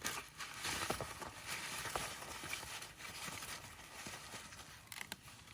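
Close rustling and crackling with many small clicks, starting suddenly and loudest in the first few seconds before easing off.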